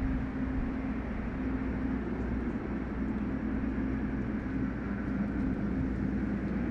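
Sci-fi ambient soundscape of an industrial shipyard: a steady low machine rumble and noise with a held humming drone. A faint higher tone comes in about two-thirds of the way through.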